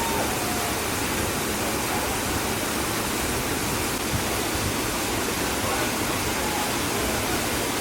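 Waterfall rushing steadily, an even wash of falling water.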